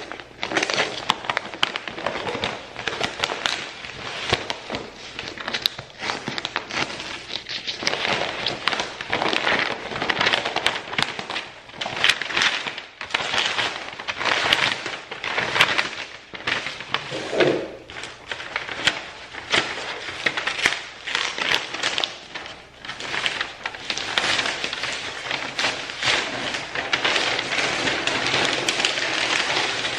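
Continuous crackling and rustling of packaging being handled and torn open while a box of plants is unboxed, with dense small clicks and crinkles throughout.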